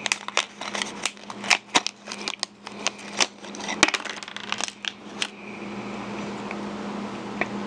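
Crinkling and crackling of a metallized anti-static plastic bag being handled and pulled open as a small circuit board is slid out. It stops a little past halfway.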